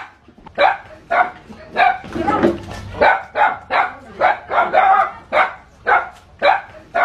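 A dog barking rapidly and aggressively, about two sharp barks a second, as it attacks a snake. About two seconds in there is one longer, rougher bark.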